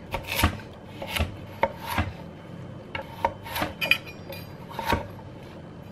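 Kitchen knife cutting carrots on a chopping board: a dozen or so uneven chops and knocks.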